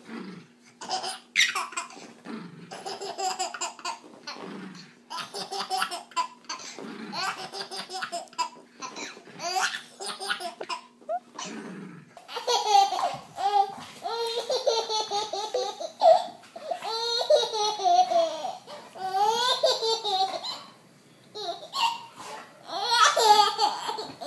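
Baby laughing hard in repeated bursts of giggles and belly laughs. About halfway through, the laughter turns into higher, longer squealing peals.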